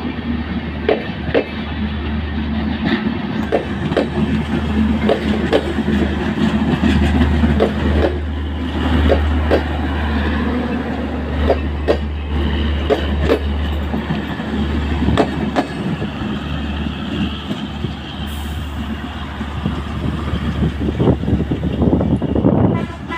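Passenger coaches of a train rolling past close by, their wheels clattering on the rails with a steady rumble and many sharp, irregular clacks.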